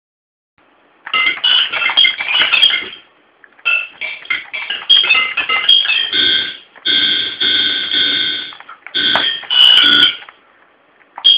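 Tinny, high-pitched electronic music in short phrases with brief gaps, including one long held chord in the middle. It starts about a second in.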